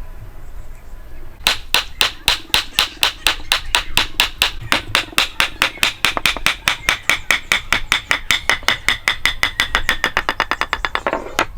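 A hammer striking in a quick, even run of blows, about six a second and quickening toward the end. Each blow has a ringing note that drops steadily in pitch as the run goes on. The blows start about a second and a half in and stop shortly before the end.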